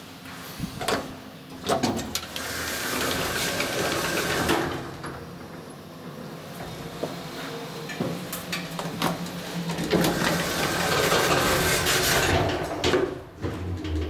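Automatic doors of a 1985 Hopmann elevator: a couple of clicks, a few seconds of door-mechanism running as they open, and after a pause a second longer run with clicks as they close again.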